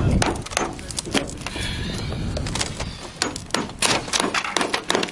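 Irregular hammer and pry-bar knocks on a roof as old metal roofing and chimney caulking are broken loose, the strikes coming thicker in the second half.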